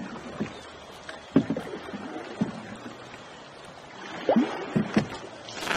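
A canoe being paddled: water swishing and splashing under the paddle, with a few sharp knocks of paddle against the canoe scattered through, several close together near the end.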